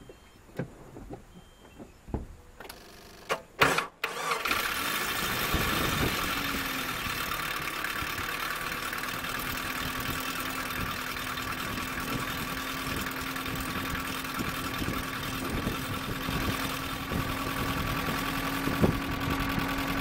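1997 Nissan pickup's 2.4-litre four-cylinder engine cranking briefly and catching about four seconds in, then running steadily at idle, now that its no-start has been cured with a new distributor, plugs and ignition wires. It runs and rattles like a high-mileage engine.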